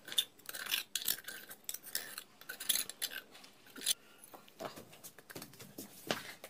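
A flat metal tool scraping and chipping caked dirt out of an electric water pump's housing, a quick run of irregular clicks and scrapes that thins out after about four seconds into a few knocks as the pump body is handled. The dirt is clogging the pump's suction opening and had jammed the rotor.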